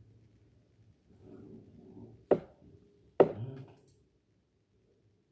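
Two sharp knocks about a second apart: drawing rulers being handled and set down on the pattern table, over faint paper rustling.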